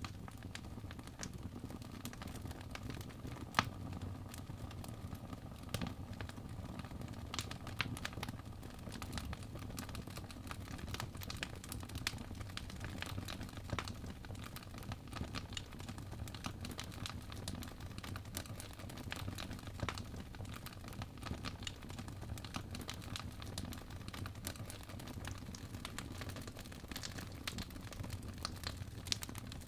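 Wood fire crackling in a fireplace: a steady low rumble of flames with frequent small snaps and an occasional louder pop.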